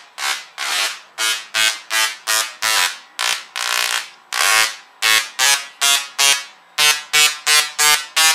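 Handheld musical Tesla coil (Tesla gun) playing a tune with its MIDI-driven sparks: a melody of short pitched notes, about two to three a second, with a couple of longer held notes in the middle.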